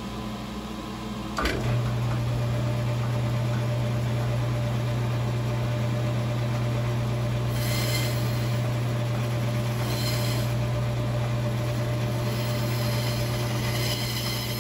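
Bandsaw switched on with a click about a second and a half in, its motor then running with a steady low hum. The blade cuts into a block of African Blackwood in short passes, adding a brief rasp twice around the middle and again near the end.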